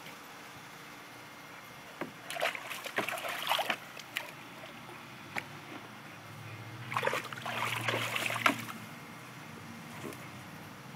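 A dog splashing and wading in a plastic kiddie pool, in two bouts of splashing a few seconds apart.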